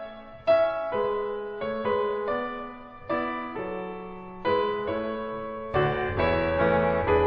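Background music: a gentle piano tune with notes struck in a steady pattern, lower notes joining in near the end.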